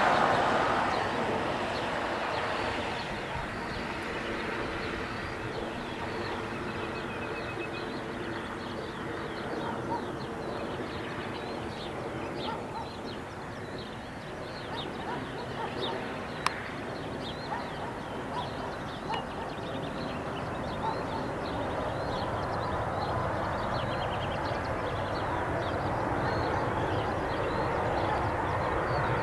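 Boeing 777-200ER on final approach, its jet engines a steady rushing drone that grows louder toward the end as the airliner closes in. Birds chirp faintly in the middle.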